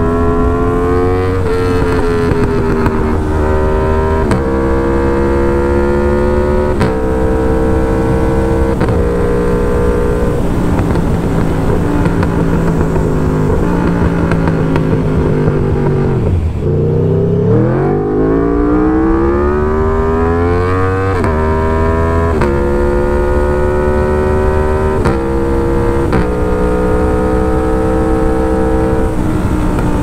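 Aprilia Tuono V4 1100 Factory's 65-degree V4 engine with an SC Project S1 exhaust and no catalytic converter, heard from inside the rider's helmet, pulling hard through the gears: the pitch climbs, then drops sharply at each upshift. Around the middle the revs sink slowly and dip low. They then climb again through several more quick upshifts.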